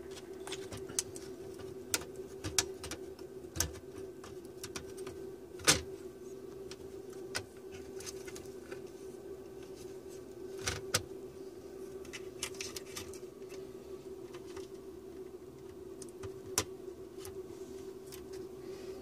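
Sharp plastic clicks and knocks as a laptop motherboard is handled and seated into its plastic base chassis, a dozen or so taps scattered through, the loudest about six seconds in and another pair near eleven seconds. A steady faint hum runs underneath.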